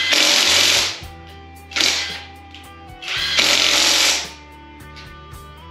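A power tool run in three bursts on a stubborn engine bolt, which holds without snapping: a long burst at the start, a short one about two seconds in, and another of about a second just past the three-second mark. Steady background music plays underneath.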